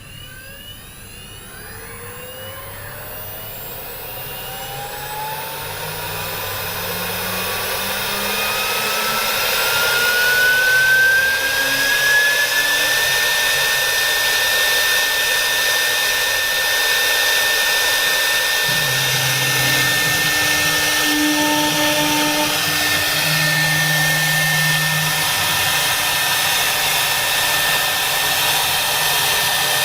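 CNC router spindle spinning up: a whine that rises steadily in pitch and grows louder over about the first thirteen seconds, then holds at a steady speed with an even high whine over a hiss of air.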